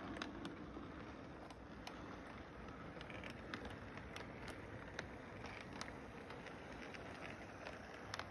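Model train rolling along its track: a steady low rumble of wheels and motor with scattered light clicks.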